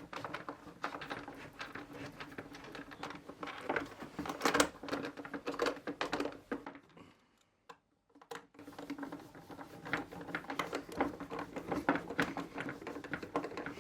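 Screwdriver driving screws into the plastic outer housing of a pressure washer: a run of small, rapid clicks and scrapes, with a pause of about two seconds in the middle.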